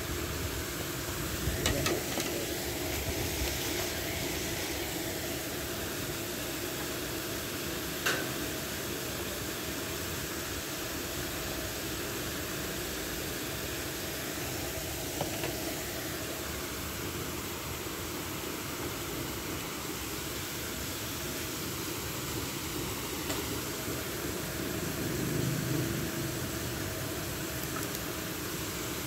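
Steady outdoor background hiss and low hum with a few faint clicks.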